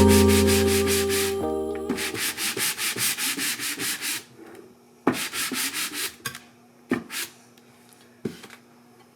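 Wood being sanded by hand: quick back-and-forth strokes of sandpaper, about four a second, in two runs, then a few single strokes. Background music fades out in the first two seconds.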